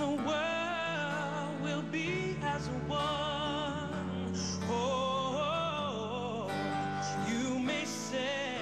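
Music: a song with a singer holding wavering notes with strong vibrato over steady sustained chords.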